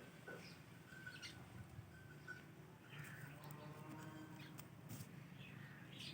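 Indian ringneck parrot giving faint, short chirps, with one longer call a little past halfway and a few soft clicks.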